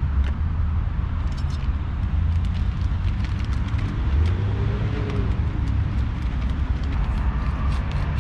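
Steady low rumble of road traffic going round the roundabout. Over it come small ticks and rattles from a plastic container of breadcrumbs being handled and shaken to coat chicken.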